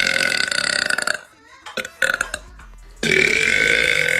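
A woman belching loudly. A long burp trails off about a second in, a short burp comes about two seconds in, and another long, drawn-out burp starts about three seconds in.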